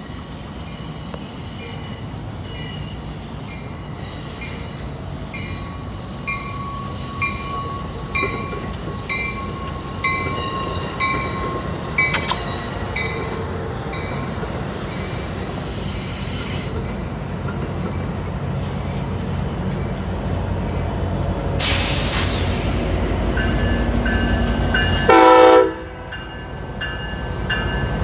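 Amtrak California passenger train of bilevel cars rolling past with its Charger diesel locomotive, wheels squealing. A warning bell rings steadily, and the horn sounds one short loud blast near the end.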